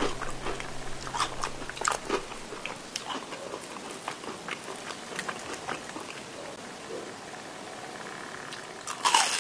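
Crisp, crackly crunching and chewing of deep-fried shrimp toast (menbosha), heard up close as irregular crunches, with a louder crunch near the end.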